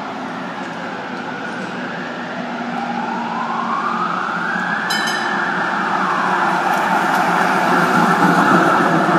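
Tram approaching and passing close, growing louder as it nears, with a high whine that climbs for a couple of seconds and then holds. A short high ring sounds about five seconds in.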